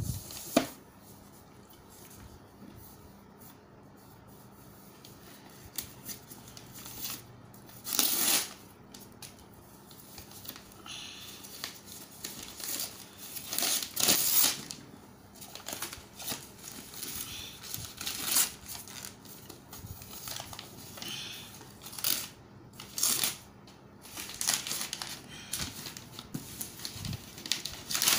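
Gift-wrapping paper being torn and crinkled by hand in short rips and rustles, sparse for the first few seconds and more frequent in the second half.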